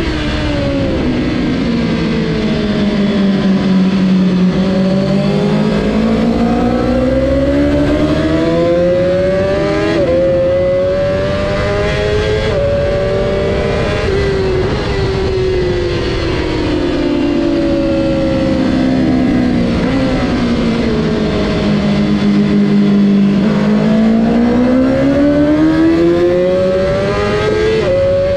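Honda CBR1000RR-R Fireblade's inline-four engine at race pace. Revs fall as the rider brakes and downshifts, then climb hard through quick upshifts, twice over.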